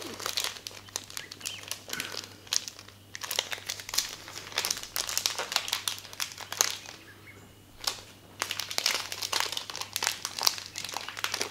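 Small clear plastic packet crinkling as it is handled and worked open by hand to take out soft lure skirts, in irregular spells with two short pauses.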